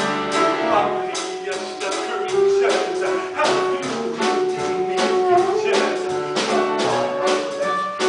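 Upbeat show-tune accompaniment with a steady beat, played without singing as a dance break.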